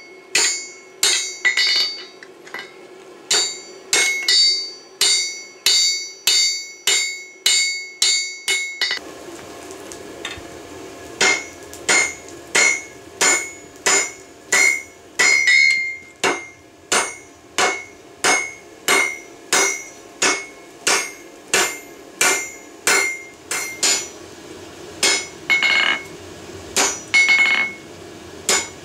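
Hand hammer forging red-hot railroad spike steel on an anvil: a steady rhythm of about two blows a second, each with a short metallic ring from the anvil. A faint low rumble runs under the blows from about nine seconds in.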